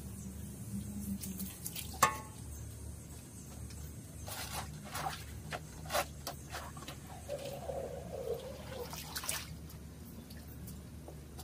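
Water dripping and splashing, most likely off the freshly washed rug, over a steady low hum, with a sharp knock about two seconds in.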